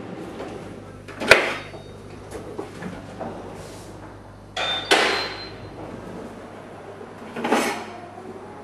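Kitchen pull-out drawers being opened and closed, with knives knocking against a stainless knife holder inside: three separate short clatters, about a second in, around five seconds, and near the end.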